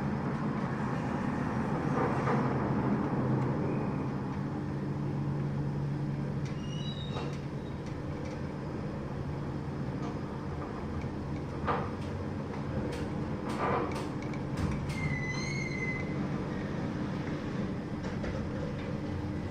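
Cycle lift running: a steady machinery hum from the drive, with a few short knocks and brief squeaks during the ride.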